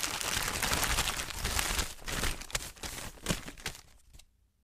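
Plastic bag crinkling and rustling as it is handled and opened. The crinkling is dense for the first two seconds, then breaks into a few separate crackles that fade away near the end.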